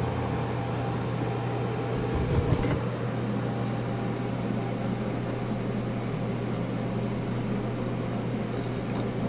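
Electric forge blower running with a steady low hum, with a few light knocks about two seconds in.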